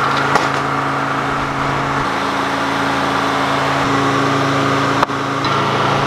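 Detroit Diesel engine powering a sawmill, running steadily under a hum of machinery, its note shifting slightly a couple of times. A single sharp knock comes about five seconds in.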